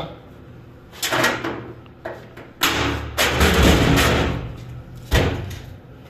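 Heavy steel checker-plate floor trench cover being lowered shut: metal knocks and scraping, then a sharp heavy thud about five seconds in as the plate drops into its frame.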